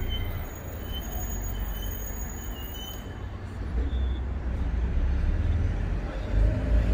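Low rumble of road traffic with heavy vehicles, swelling about four seconds in and again near the end.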